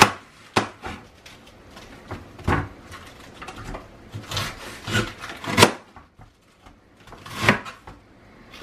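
Large kitchen knife cutting through a head of cabbage: crisp crunching cuts through the leaves, each ending in a knock of the blade on the cutting board, at irregular intervals of a second or two.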